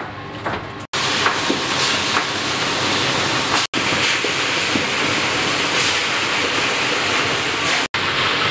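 A steady rushing hiss, starting about a second in and interrupted by two brief sudden dropouts.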